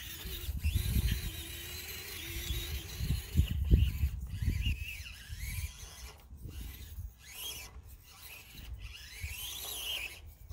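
An Axial SCX24 micro crawler's small electric motor and gears whine as it climbs rough rock. The pitch holds steady at first, then rises and falls several times with the throttle. Low knocks and scrapes come from the tires and chassis working over the rock.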